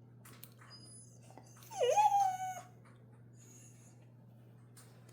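A dog gives a single whine about a second long, about two seconds in: it dips in pitch, then rises and holds. A few faint light clicks come before and after it.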